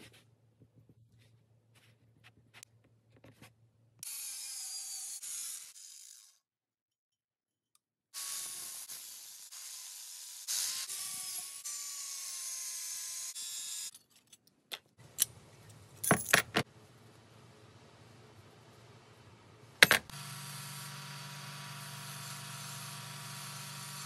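Angle grinder with a thin cutoff wheel cutting through the steel of an old saw blade clamped in a vise, in two spells, the longer one about six seconds with the motor's whine wavering under load. Then several sharp metal clicks and knocks, and a bench bandsaw's motor starts and runs with a steady hum.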